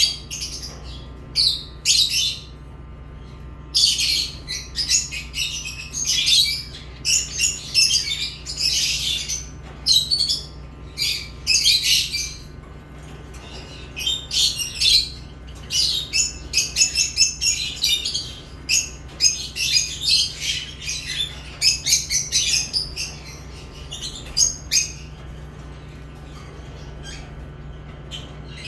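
Lovebirds chirping in runs of rapid, high-pitched calls mixed with squawks, broken by a few quiet pauses of a second or more, the longest near the end.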